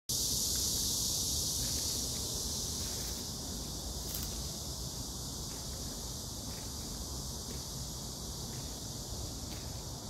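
Steady high-pitched chorus of insects in the trees, a little louder in the first two seconds, over a low rumble on the microphone.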